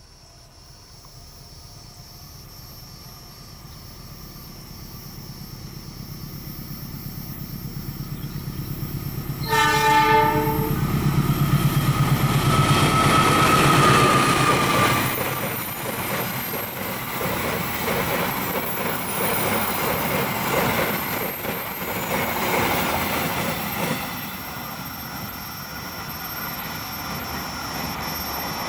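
A KAI diesel-electric locomotive approaches with its engine rumble growing louder, sounds one short horn blast about a third of the way in, and runs past. A brief wheel squeal follows, then the steady clatter and rattle of a string of empty flat wagons going by.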